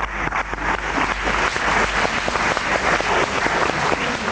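Audience applauding, many hands clapping at once.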